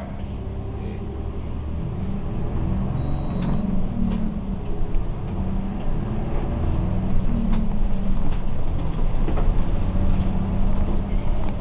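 City bus's diesel engine heard from inside the cabin as the bus gets under way and accelerates, its pitch rising and dropping several times, with scattered clicks and rattles.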